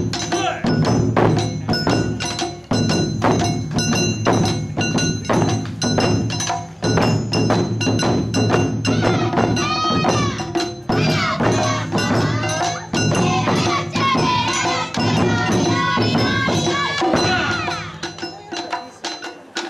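Live Awa Odori festival music: a drum beating a steady fast rhythm under small metal percussion that keeps ringing. A wavering high melody joins about halfway through, and the music softens near the end.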